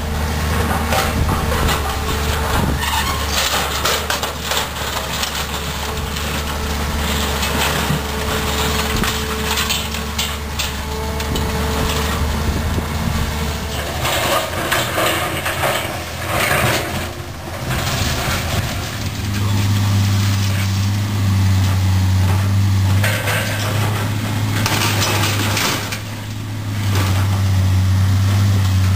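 Heavy machinery engine running under load while old farm machinery is crushed for scrap, with irregular metal crunching and clattering. The engine hum drops away about halfway and comes back at a slightly higher pitch.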